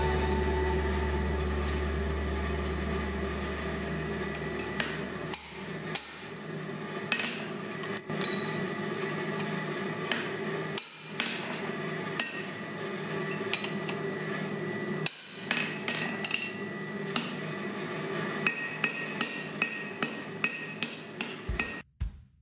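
Hand hammer striking a hot steel bar on an anvil. A few scattered blows come first, then a quick run of blows in the last few seconds, all over a steady roar in the shop.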